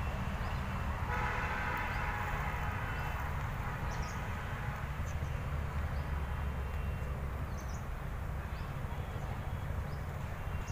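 Outdoor background of a steady low traffic rumble, with a drawn-out horn lasting about two seconds from about a second in, and a few short bird chirps.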